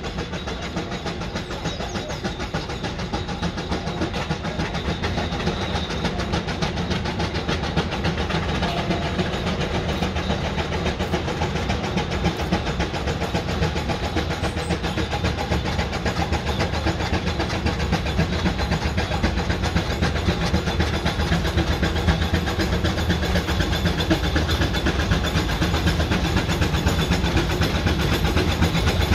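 Steam road roller approaching at walking pace, its engine's exhaust beating steadily and growing louder as it nears.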